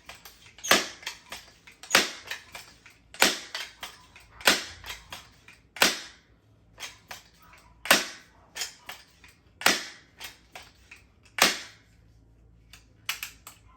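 A series of sharp clacks from handling gear, about one every one and a half seconds, with smaller clicks between them.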